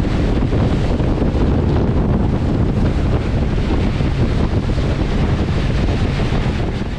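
Heavy wind buffeting the microphone on a speedboat running fast over open sea, mixed with the rush of the spray thrown up by the hull. It is a loud, even rumble and hiss.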